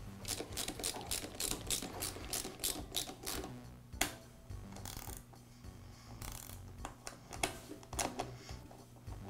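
Ratchet clicking in a quick even run, about five clicks a second for some three seconds, then a sharp single click and a few scattered clicks and taps, as the motor side cover of a Ridgid drain auger is fastened.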